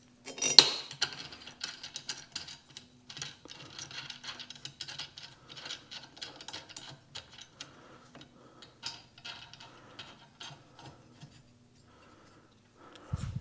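Steel bolts being turned by hand through an Ironhead cylinder head into a steel holding fixture, metal on metal: a sharp clack about half a second in, then a long run of small clicks and rattles. A dull thump near the end.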